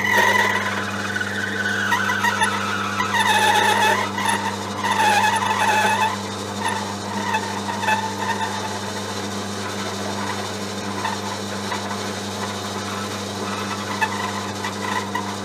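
Twist drill squealing as it bores into a spinning stainless steel bar on a small lathe, over the steady hum of the lathe running. The squeal starts suddenly, is loudest for the first six seconds or so, then carries on fainter and uneven, the drill struggling in hard-to-machine stainless.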